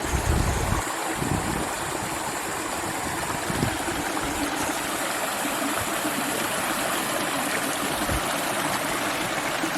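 Mountain brook rushing over rocks: a steady, dense water noise that starts abruptly, with a few low bumps in the first second and at a couple of later moments.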